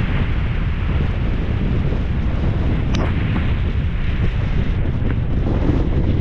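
Strong wind buffeting the action camera's microphone, a loud steady rumble with hiss over it, with one sharp click about three seconds in.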